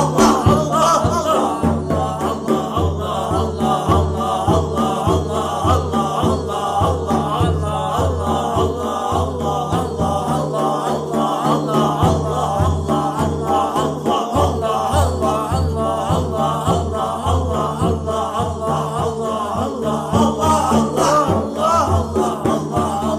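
Voices chanting a zikr, the repeated invocation of the name Allah, in a steady rhythmic pulse over a held low drone.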